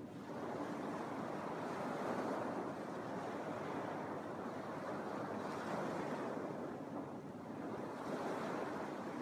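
Small Lake Michigan waves breaking and washing onto a sand beach, a steady wash that swells and eases every couple of seconds.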